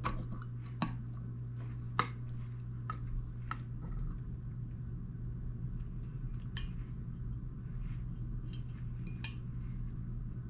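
Cutlery clicking and scraping against a dish while cutting into a soft layered ladyfinger dessert, with scattered sharp clinks every second or so.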